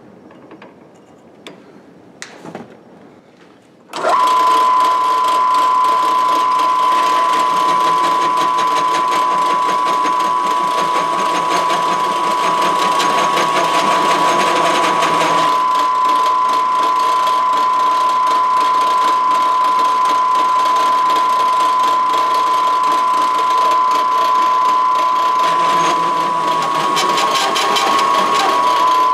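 Drill press driving a bi-metal hole saw through steel plate lubricated with cutting oil, starting about four seconds in and running steadily with a high-pitched ring. Near the end it chatters as the saw is about to break through.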